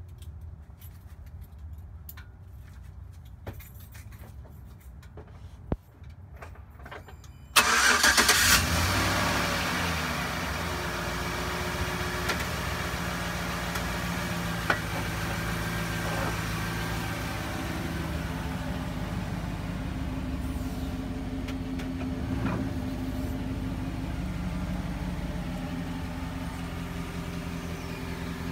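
A few faint clicks, then the 2011 Chevrolet Silverado's engine is cranked and starts about seven and a half seconds in. It flares loud for a moment and then settles into a steady idle.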